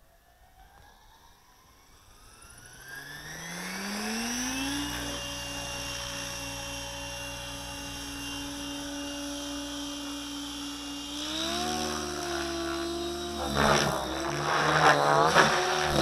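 Align T-Rex 700E Pro DFC electric RC helicopter spooling up: the motor whine and rotor tone rise steadily in pitch for about five seconds, then hold steady at head speed. About eleven seconds in the pitch steps up again, and near the end it wavers and grows louder as the helicopter flies.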